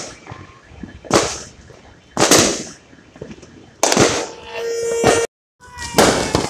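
New Year fireworks and firecrackers exploding: four loud bangs, roughly one to two seconds apart, with a crackling tail after the one near the middle.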